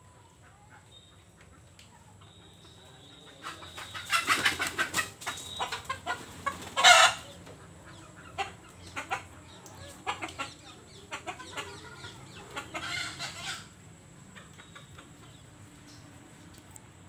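Domestic chickens clucking, in scattered short calls with a run of loud ones about four seconds in, the loudest burst about seven seconds in, and another loud spell near thirteen seconds.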